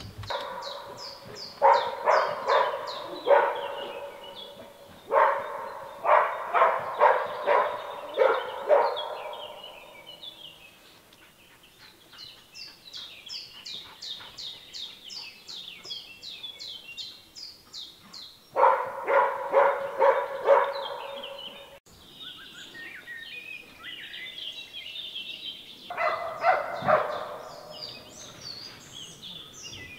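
A scent hound barking in four bouts of rapid, evenly spaced barks. Birds chirp high in the background.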